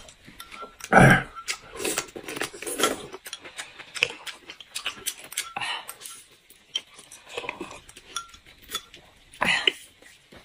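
Close-up eating sounds: chewing, smacking and sucking as meat is gnawed off a braised pork bone, in irregular loud bursts, with small clinks of a utensil against a glass bowl.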